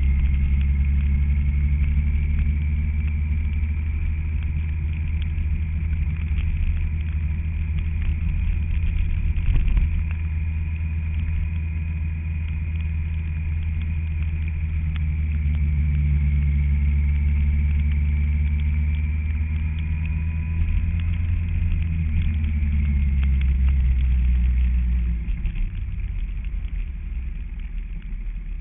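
Kawasaki ZZR1400 motorcycle engine running steadily under way, a loud low drone that eases off about 25 seconds in.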